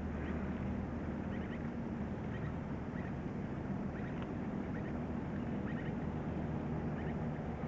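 Steady low background hum, with faint short chirps of birds now and then.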